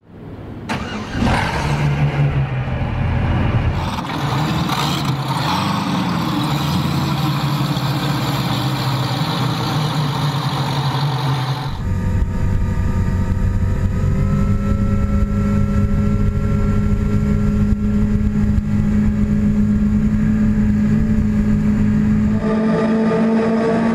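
Twin 627 hp supercharged V8 outboard engines starting up and running. From about halfway they idle steadily with a clear low note, which steps slightly higher near the end.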